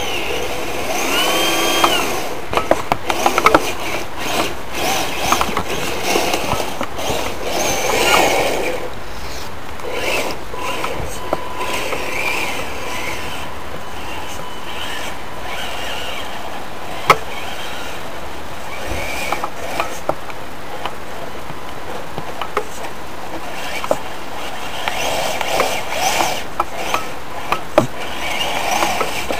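Kyosho Blizzard DF-300 EV radio-controlled tracked snow vehicle crawling over rough ground: its brushless electric motor whines up and down, with clicking and rattling from the drivetrain and tracks.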